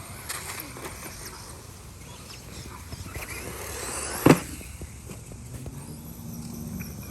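Brushed electric RC buggy driving over the ground, its tyres and drivetrain making a steady scuffing noise with scattered clicks. A high motor whine rises about three and a half seconds in, followed by a loud sharp knock just after four seconds.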